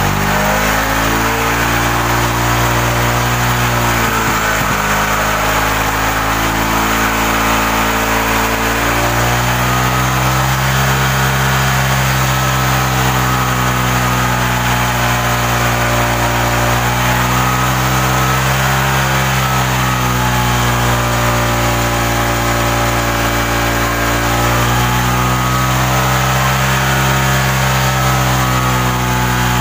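Suzuki Shogun 125's single-cylinder four-stroke engine idling steadily, its speed drifting gently up and down a few times. It is running normally while it warms up.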